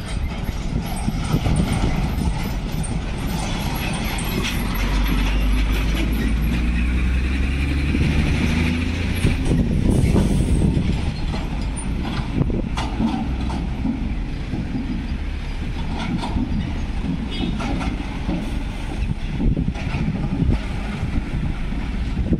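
Heavy diesel trucks and fuel tankers driving over a level crossing one after another: a continuous low engine rumble and tyre noise, with a few sharp knocks in the second half.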